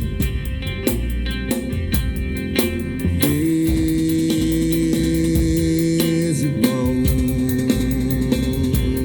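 Live band playing an instrumental passage: drums keep a steady beat under bass and guitar. About three seconds in, a long held low note enters, and about three seconds later it gives way to another held note.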